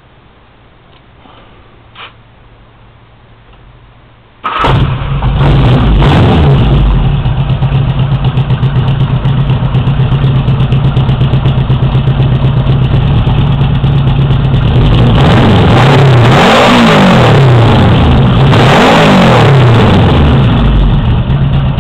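A 1977 Honda GL1000 Gold Wing's flat-four engine, breathing through aftermarket mufflers, starts about four seconds in and runs at a loud, pulsing idle. Near the end it is revved up and let back down twice. The owner calls the exhaust sound "bad".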